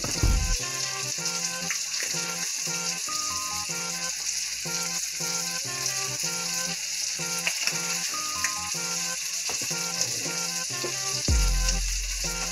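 Brussels sprouts and yellow squash sautéing in a frying pan, a steady sizzle. Background music with a steady beat plays along with it, with a heavy bass hit near the end.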